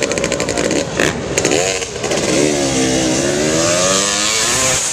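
KTM dirt bike engine revving, its pitch falling and rising again as the rider works the throttle.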